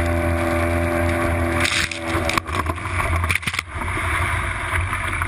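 A small open fishing boat under way in rough water. A motor hums steadily for the first two seconds or so, then wind buffeting and spray and waves splashing against the boat take over in rough surges with a few knocks.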